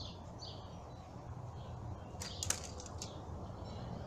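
Faint outdoor ambience with small birds chirping, and a brief sharp click about two and a half seconds in.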